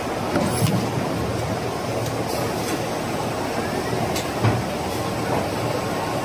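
A 1988 Bobst folder-gluer machine running steadily at production speed, a constant mechanical rumble. A few short sharp clacks sound over it, the loudest about half a second in and again at about four and a half seconds.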